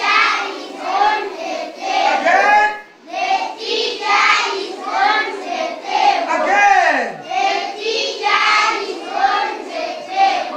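A classroom of young children singing together in unison.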